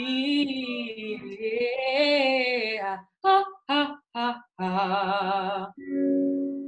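Women singing a vocal exercise with vibrato: a long phrase, then about three seconds in, three short detached notes and a held note. Near the end comes a steady electric keyboard note.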